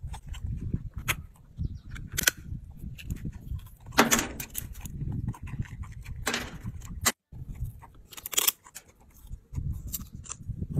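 A macaque biting into a walnut and crunching the shell: a string of sharp cracks, the loudest about four and six seconds in, over a low rumble.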